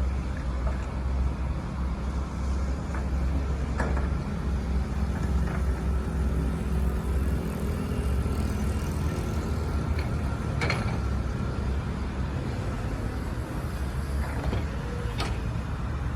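Doosan DX225LC crawler excavator's diesel engine running steadily with a low drone, with a few sharp knocks from the machine spaced several seconds apart.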